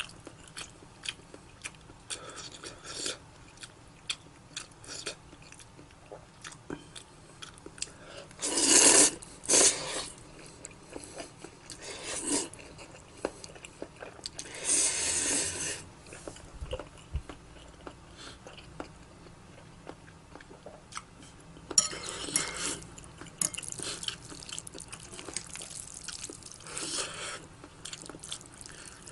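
Close-up eating sounds of mixed spicy chewy noodles: steady chewing and biting with small clicks, broken three times by louder, second-long noisy sounds.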